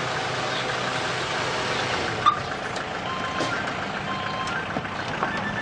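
Steady car and street noise as a red Nissan sedan stops, with a sharp click about two seconds in and lighter clicks as its doors open. From about three seconds in, short high beeps repeat over the noise.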